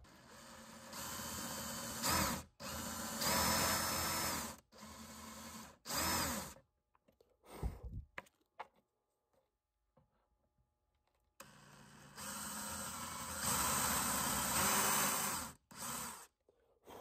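Cordless drill running in bursts as it bores a small hole through a carved wooden lure body, its motor pitch rising and falling with the trigger. The bursts stop abruptly, with a quiet stretch of a few seconds in the middle broken only by faint clicks.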